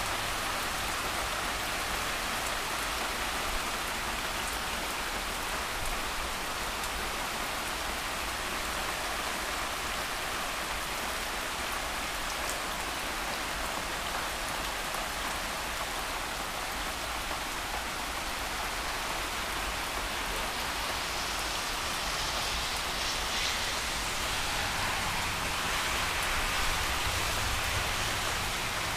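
Heavy rain falling steadily, a dense even hiss of rainfall that grows a little louder near the end.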